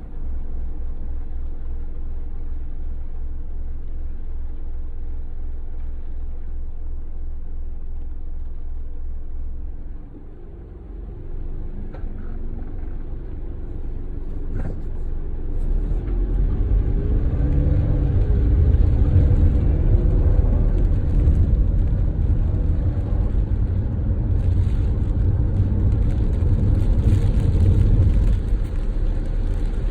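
Car driving on the road: a steady engine and road rumble that dips briefly about ten seconds in and grows louder from about sixteen seconds in.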